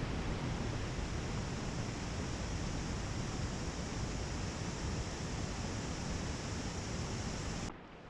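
Steady rushing noise, strongest and flickering in the low end, that cuts off suddenly near the end to a much quieter background.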